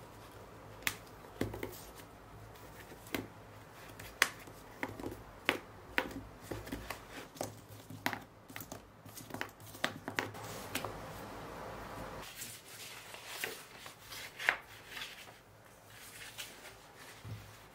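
Hands handling an old hardback book on a table: a string of sharp taps and knocks as the cord and pen are taken off it. Near the end comes paper rustling as its dust jacket is slipped off.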